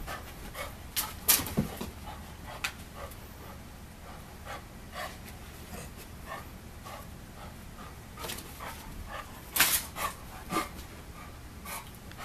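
Olde English bulldog panting in short repeated breaths while playing, with a few louder sharp sounds about a second in and again near ten seconds in.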